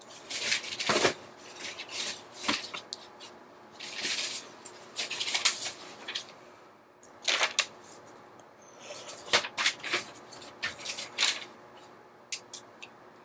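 Paper and drawing supplies being handled: irregular scratchy rustles and brushes, each lasting up to about a second, with quieter gaps between.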